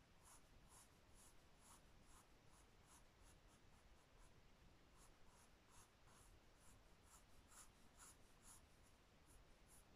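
Faint scratching of a pencil drawing light, short strokes on squared notebook paper, about two or three strokes a second, as an oval is sketched.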